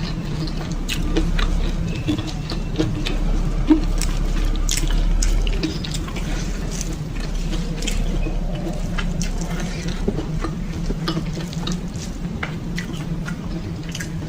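Close-miked eating sounds: wet chewing and smacking of food in the mouth, with many short sharp clicks scattered throughout over a steady low hum.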